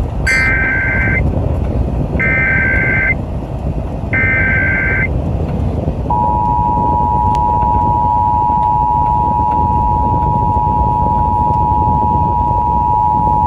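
Emergency Alert System tones over FM radio: three short screeching bursts of the digital SAME header. About six seconds in, the steady two-tone attention signal (853 and 960 Hz) starts and holds, marking the start of the national EAS test.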